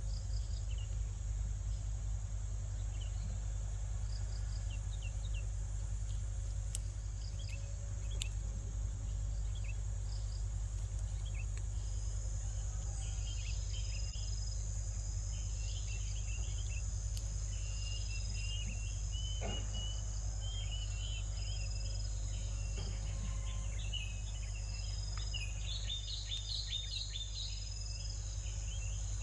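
A steady high insect drone over a low rumble, with short high bird chirps that start scattered and grow more frequent in the second half, busiest near the end.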